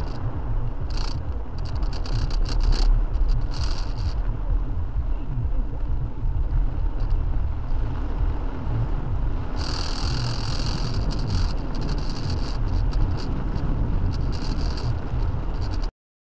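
A car driving through heavy rain: a steady low rumble of engine and road, with rain hissing and tapping on the car. A denser rush of water hiss lasts about a second and a half around ten seconds in. The sound cuts out just before the end.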